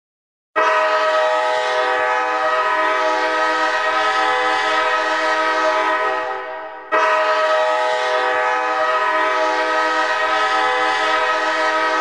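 The San Diego Gulls' ice hockey goal horn sounding two long blasts of several steady tones together. The first lasts about six seconds and fades away, and the second starts again just before the seventh second.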